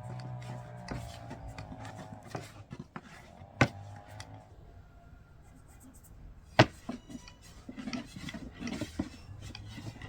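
Kitchen handling sounds: rubbing and scraping with light knocks of utensils and dishes, broken by two sharp knocks, one a few seconds in and one past the middle.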